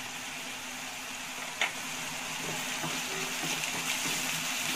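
Chopped shallots and garlic sizzling in hot sunflower oil in a steel pan, a steady hiss with a faint low hum underneath. A single light click comes about a second and a half in, and a spatula begins stirring in the second half.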